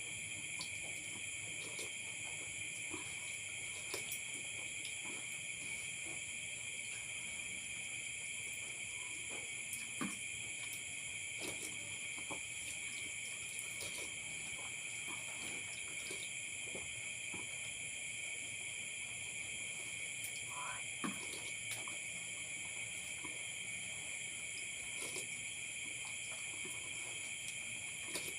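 Steady high-pitched chorus of night crickets, several unbroken tones, with scattered faint clicks and clinks of a spoon and bowl while eating.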